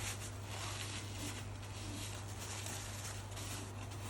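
A cloth or tissue wiping up spilled rinse aid around the dishwasher's rinse-aid dispenser, irregular soft rubbing strokes, over a steady low electrical hum.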